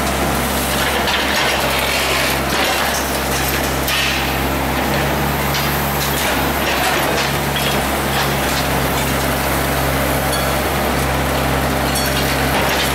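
Excavator engine and hydraulics running steadily under load while an MTB MTCR 04 hydraulic demolition shear crushes a reinforced-concrete slab. Crackling and crunching of concrete breaking away runs over the low, steady machine hum.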